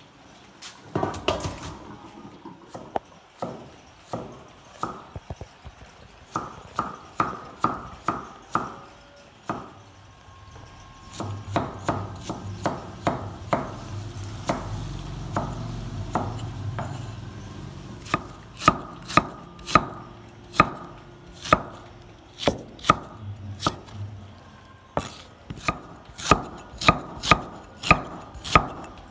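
Cleaver slicing fresh bamboo shoots on a wooden chopping board: a run of sharp knife strikes on the board, about two a second, getting louder in the second half.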